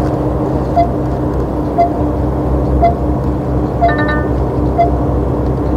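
Truck engine running steadily, heard from inside the cab, with a short electronic beep repeating about once a second and a brief higher chime about four seconds in.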